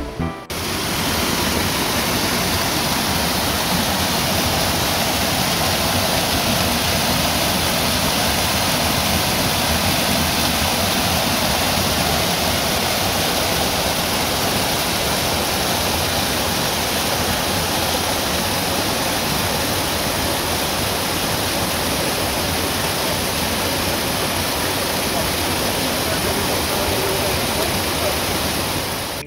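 Fast-flowing stream water rushing through a stone mill channel: a loud, steady, even rush that cuts in abruptly at the start.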